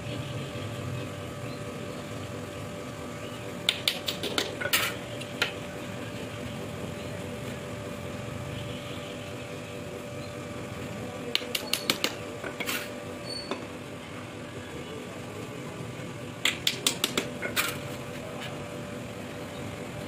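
Sharp taps on thin pine strips of a wooden cage frame, coming in three short bursts of several quick strikes each, about a third of the way in, past the middle and near the end, over a steady low hum.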